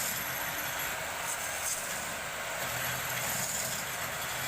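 Steady machine noise: a motor running with an even hiss and a low hum.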